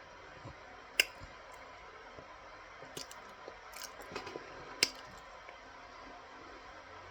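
Mouthfuls of raw cornstarch being chewed close to the microphone, with a few sharp crunches, the loudest about a second in and near five seconds in.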